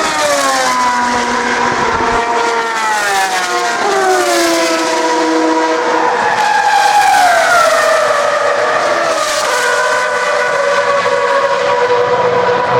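Single-seater race car engines at high revs, several cars in succession, loud and continuous, with the pitch dropping several times as they pass and shift gear.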